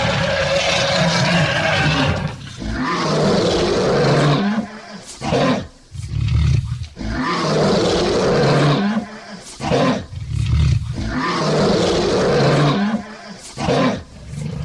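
Male lion roaring repeatedly: a string of loud roars, each lasting a second or two, with a few shorter, deeper grunting calls between them.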